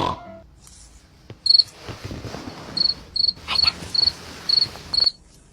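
A cricket chirping: short, high chirps starting about a second and a half in and then coming about twice a second, over a faint hiss.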